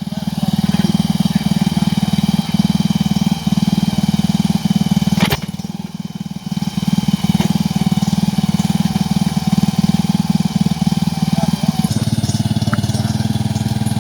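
Engine running steadily under load with a fast, even firing pulse, its note dropping lower about twelve seconds in. A single sharp click about five seconds in.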